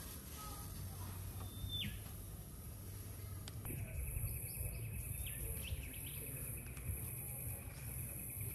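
Outdoor bush ambience: birds chirping and calling now and then, with a steady high insect buzz that sets in about a third of the way through, over a low steady rumble.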